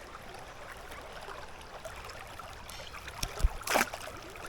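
River water running steadily, with a brief sharp noise about three and a half seconds in.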